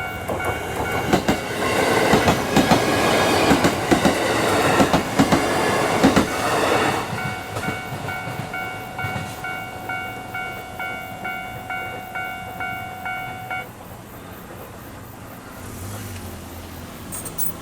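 Japanese railway level-crossing alarm ringing, a repeated electronic ding about twice a second, while a train passes with its wheels clicking over the rail joints. The train noise dies away after about seven seconds, the alarm keeps ringing, then cuts off suddenly about fourteen seconds in.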